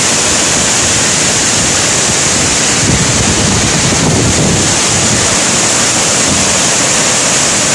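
Powerful waterfall crashing down close by: a loud, steady roar of falling water, with wind and spray buffeting the microphone.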